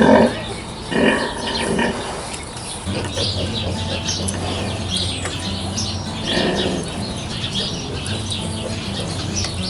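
Two short calls from a farm animal in the first two seconds, then many small birds chirping over a steady low hum.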